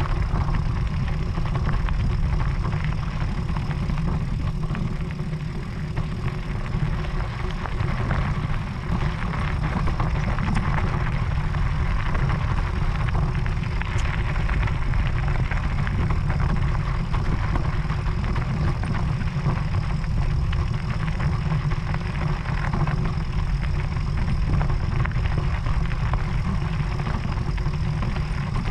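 Steady low rumble of an e-mountain bike riding over a gravel track: tyres crunching on stones and the frame rattling, with wind on the camera microphone.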